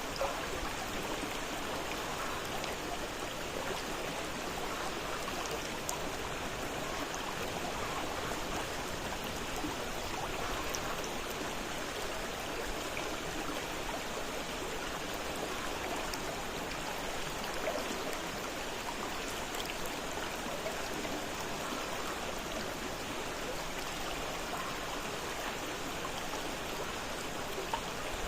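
A fast-flowing river or mountain stream running over rocks: a steady rushing and splashing with small bright splashes throughout.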